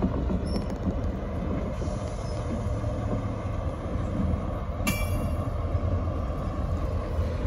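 SNCF BB 75000-class diesel-electric locomotive running past at low speed, its diesel engine giving a steady low drone. A brief high metallic squeal, as from wheels on the rail, comes about five seconds in.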